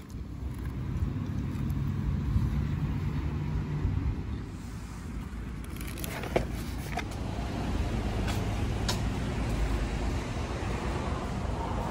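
Steady low rumble of a motor vehicle engine running close by, with a few sharp clicks in the second half.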